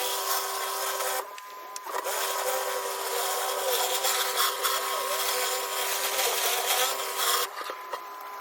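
Pressure washer spraying through a flat surface cleaner onto sandstone paving: a steady rushing spray with a constant whine. It cuts out about a second in, starts again under a second later, and stops again near the end.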